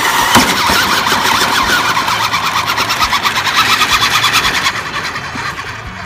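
Large electric RC monster truck driving across wood chips, its motor and gears whirring with a fast, even rattle. The sound drops off about four and a half seconds in.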